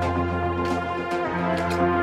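Background music: held, steady chords with sharp percussive hits every half second or so.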